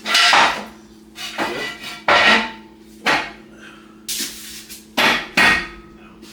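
Hammer striking metal, about seven irregular blows, with a steady low hum underneath.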